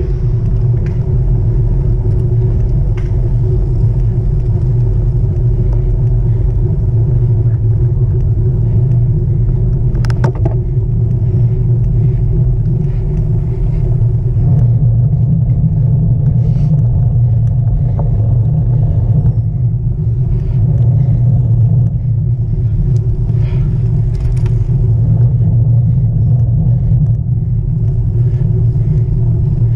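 Wind rumbling over the microphone of a camera mounted on a moving road bike, with a steady hum from riding on asphalt underneath. A single click about ten seconds in.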